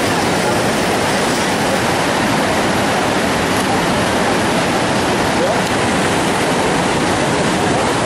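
Steady, loud rushing of the Niagara River's whitewater rapids.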